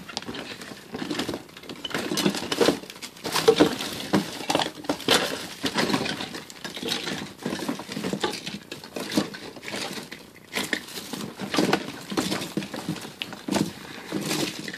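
Irregular clatter and clinking of small hard objects being handled and moved about, as when someone rummages through things looking for a tool.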